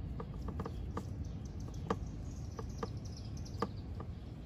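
Palette knife working oil paint on a wooden palette: about ten light, irregular clicks and taps of the blade against the palette as the paint is mixed, with faint bird chirps behind.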